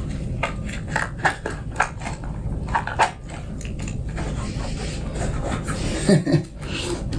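A lubricated rubber foot peg cover being pushed and worked onto a motorcycle's metal foot peg: a quick run of small clicks, rubs and squeaks in the first few seconds, over a steady low hum.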